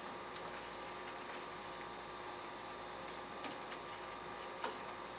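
Scattered light clicks of typing on a computer keyboard over a steady room hiss, with a sharper click near the end.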